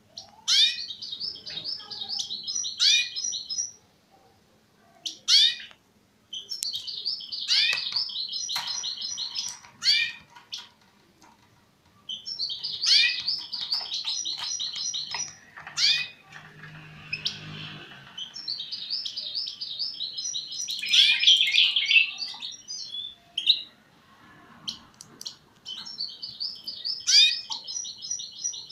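A caged finch singing: five phrases of rapid, high twittering of a few seconds each, laced with sharp downward-sweeping notes and separated by short pauses.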